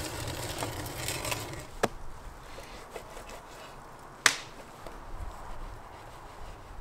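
Wood fire crackling, then a knife cutting raw bison meat on a wooden cutting board, with one sharp knock of the blade on the board about four seconds in.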